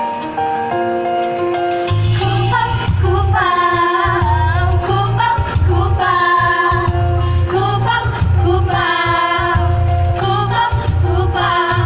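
A vocal group singing a shalawat, an Islamic devotional song, over instrumental accompaniment. It opens with steady held keyboard-like chords. A bass beat comes in about two seconds in, and the voices enter soon after.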